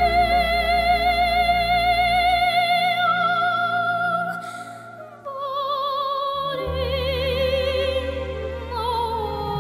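A young girl's classical soprano voice singing, with long held notes and wide vibrato, over instrumental accompaniment with sustained low bass notes. The sound drops for a moment about five seconds in, then the next phrase comes in lower.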